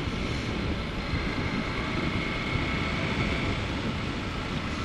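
Motorcycle engine running steadily under way, mixed with the rush of wind and road noise, with a faint steady high whine over it.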